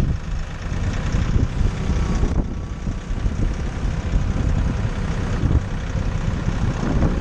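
Compact tractor's diesel engine running steadily as it drives, with wind rumbling on the microphone.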